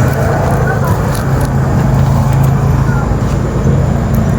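Steady low mechanical hum and rumble, even in level throughout.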